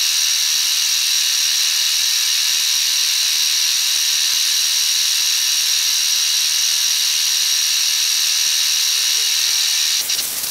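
A 1/8-inch end mill in a milling machine cutting 316 stainless steel: a steady, high-pitched whine and hiss of the cut, broken briefly near the end.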